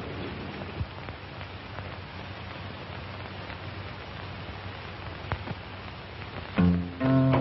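Steady hiss with a few faint clicks, then, about six and a half seconds in, a phonograph record starts playing: strummed acoustic guitar.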